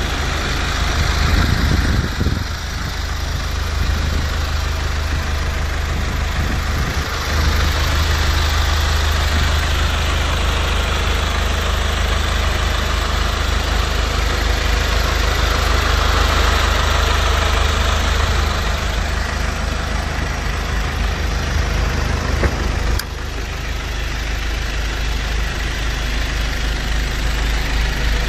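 Hyundai County minibus engine idling steadily, a low even drone that grows louder about a quarter of the way in and drops back a little about three quarters of the way in.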